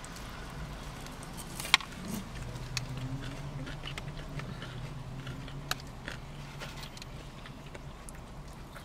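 People chewing and biting into a fried chicken sandwich and fries, with a few sharp clicks, the sharpest nearly two seconds in, over a faint steady low hum.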